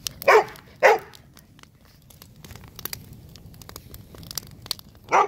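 A dog barks twice in quick succession, then an open fire of cloth and sticks crackles and pops for several seconds, and the dog barks once more near the end.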